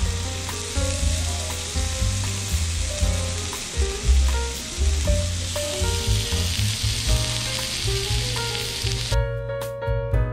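Cubed steak sizzling on a hot iron serving plate, a steady hiss that stops suddenly near the end, with background music underneath.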